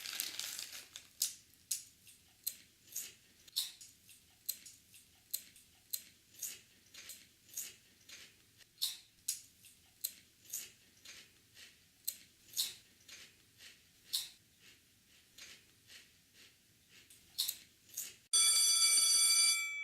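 A pen tapping in short, sharp clicks, roughly two a second with an uneven rhythm. Near the end a loud, steady multi-tone ring cuts in suddenly and lasts just over a second.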